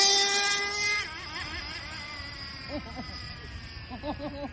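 Traxxas RC truck's motor whining at a high steady pitch, then fading and dropping in pitch about a second in as the truck speeds away down the street.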